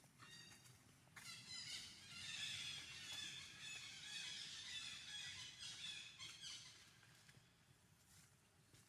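A baby monkey squealing in high-pitched, wavering cries: a short cry just after the start, then an almost continuous run of squeals for about five seconds that fades out.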